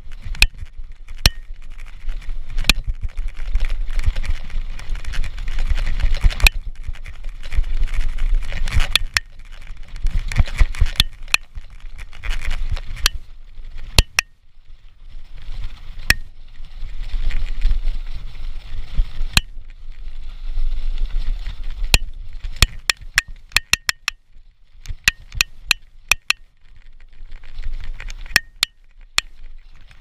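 Mountain bike ridden fast down a dirt trail and rough gravel road: wind rumbling on the microphone and tyre noise that swell and fade with speed, with frequent sharp clicks and rattles from the bike jolting over the rough ground, in dense clusters near the end.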